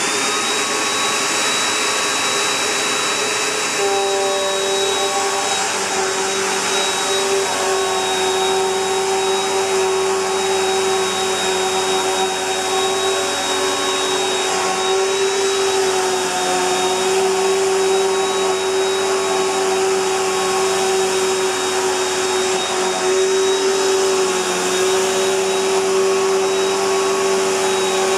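Bissell PowerLifter Bagged Pet upright vacuum cleaner running steadily with a high motor whine; about four seconds in, a lower tone comes in stronger.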